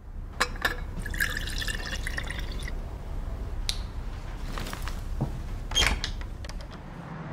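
Small handling sounds in a quiet room: a few sharp clicks, a stretch of light trickling from about one to nearly three seconds in, and a louder click near six seconds.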